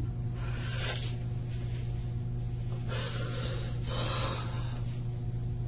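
A person breathing audibly in a pause, three short sharp breaths or sniffs about a second, three seconds and four seconds in, over a steady low electrical hum in the room.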